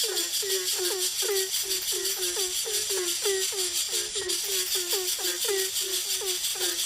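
A bird calling over and over: short, low calls that each drop slightly in pitch, repeated about four times a second without a pause, over a steady high hiss.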